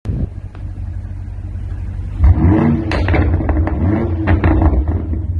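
F90 BMW M5's 4.4-litre twin-turbo V8 through an aftermarket exhaust, idling with a low rumble, then revved about two seconds in. Several blips rise and fall in pitch, with sharp crackles and pops from the exhaust.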